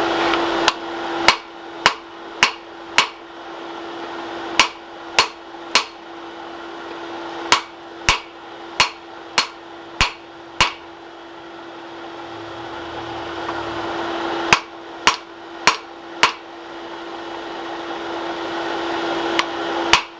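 Hand hammer striking a hot bar of tough high-carbon steel (curly tine) on an anvil to straighten it. The blows come in bursts of about two a second: five, three, six, then four, and a last single blow near the end. A steady hum runs underneath.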